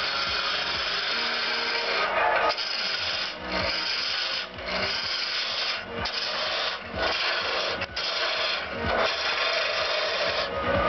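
A turning tool cutting a spinning wooden spindle on a wood lathe: a steady rushing shave broken by short gaps about once a second as the tool is lifted and run along the blank again.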